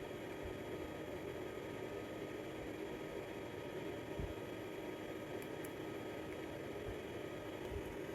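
Steady hiss with a faint electrical hum and a few soft low bumps.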